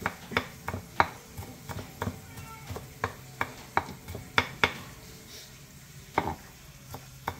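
A knife chopping onion finely on a cutting board: sharp knocks about three a second, thinning out after about four and a half seconds to two last strokes.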